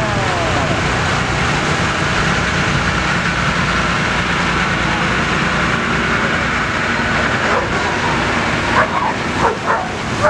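Engines of vintage fire trucks driving past one after another at parade pace, a steady hum, with the last of a siren winding down in pitch at the start. Near the end a dog barks several times.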